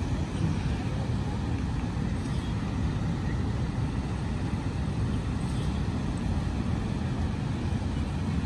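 Churning floodwater rushing out of a dam's outlet channel: a steady, low, unbroken rush.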